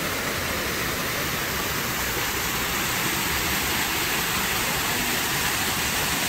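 Artificial waterfall, with pumped water pouring down a rock face into a pool: a steady, even rush.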